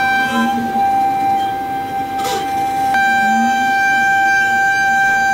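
Pocket NC v2-50 desktop five-axis mill roughing a metal housing: a steady high spindle whine over the rougher sound of the end mill cutting. A brief hiss passes just past the middle, and about three seconds in the whine's tone changes abruptly as the cut changes.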